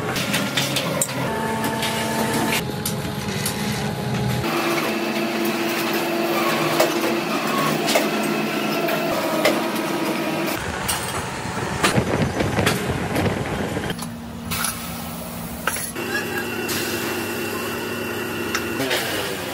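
Metalworking workshop noise in a run of short clips, changing every few seconds. Sheet steel is cut with hand shears, then machines run with steady hums at different pitches and scattered metallic knocks, with voices in the background.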